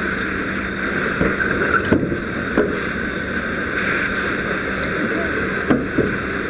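Fire hose stream spraying onto a burning car's hood: a steady rush of water over a steady low hum, with a few sharp knocks.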